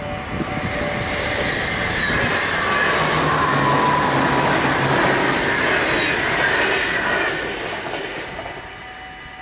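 NS ICMm electric intercity train passing a level crossing, its wheels on the rails and its running noise swelling to a loud rush around the middle and fading as it goes by. The crossing's mechanical bells keep ringing underneath.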